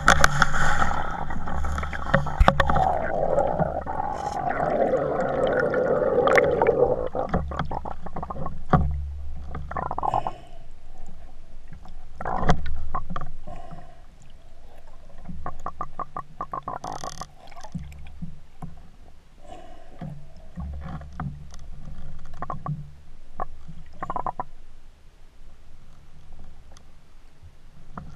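Muffled water noise heard through an underwater camera's housing as it is moved about on a pole: a rushing gurgle for the first several seconds, then quieter, with scattered clicks and knocks over a low hum.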